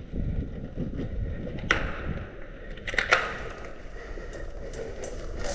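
Footsteps and body movement crunching on rough ground, with two sharp knocks, one just under two seconds in and a double one about three seconds in.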